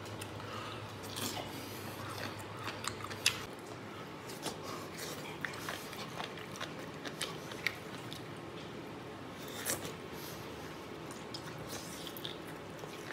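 A person biting and chewing food close to the microphone, with many small, scattered wet clicks of the mouth.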